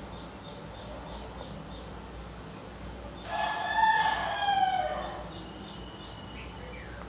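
A rooster crowing once, about three seconds in: a call of nearly two seconds that falls away at the end. Faint high chirps repeat about three times a second behind it.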